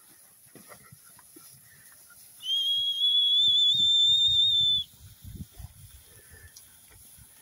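A stockman's whistle command to a working dog: one long, slightly wavering whistle lasting about two and a half seconds, starting a couple of seconds in.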